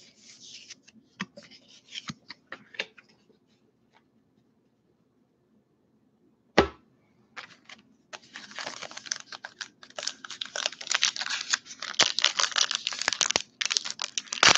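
A few light clicks and rustles of cards being handled, one sharp knock about halfway, then from about eight seconds in the dense crinkling and tearing of a baseball card pack's foil wrapper being torn open.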